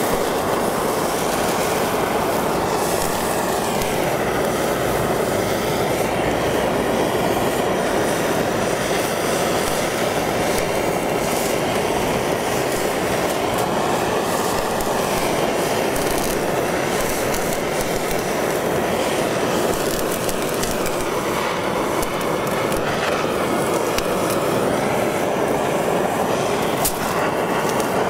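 Handheld butane torch flame running with a steady rushing hiss as it sears sauced chicken feet skewers.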